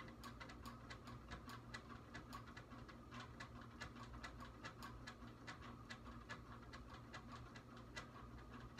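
Faint room tone: a low steady hum with light, fast ticking clicks at uneven intervals, several a second.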